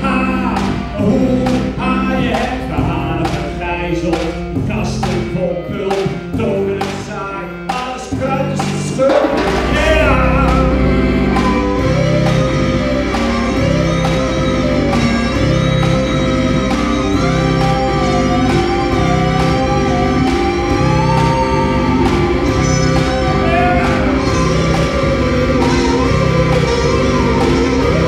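Band music with singing. For the first eight seconds or so it is sparse, with sharp clicking beats; about nine seconds in it swells into a fuller, louder band with a steady bass under a wavering melodic line.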